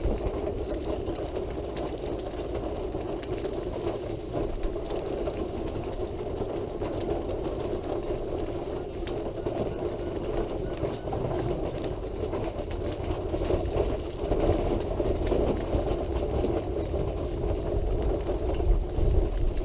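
Wheelchair moving along a hard-surfaced path: a steady mechanical hum with a low rumble from the wheels rolling, getting slightly louder about three quarters of the way through.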